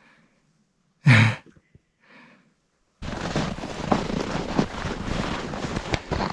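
A single short, loud sigh about a second in, with a fainter breath after it. From about three seconds in, a steady rushing outdoor noise with scattered small clicks starts abruptly.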